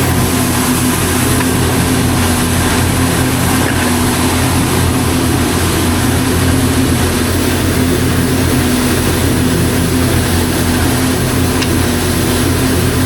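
Pressure washer running steadily: a constant low mechanical drone with an even hiss over it.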